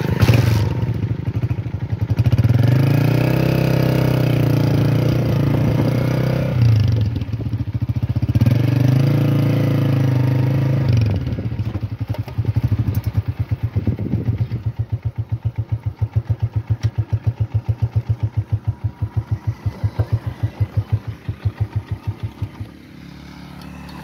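Small motorcycle engine riding under way, its pitch rising and falling twice as it speeds up and eases off. It then settles into a slower, steady pulsing beat, which drops away near the end.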